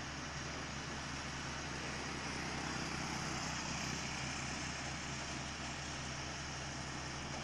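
Heavy diesel engine running steadily at idle, with a low, even hum. A motorcycle passes about halfway through, slightly raising the level.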